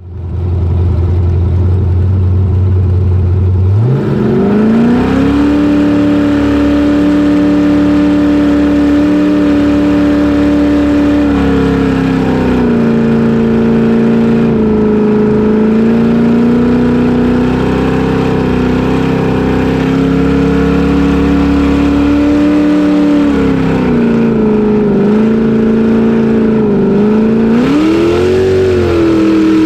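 Racing jet boat's engine, heard on board: it runs low and steady, then about four seconds in the revs climb sharply and hold high as the boat runs at speed. The revs ease off a little a few times and climb again near the end.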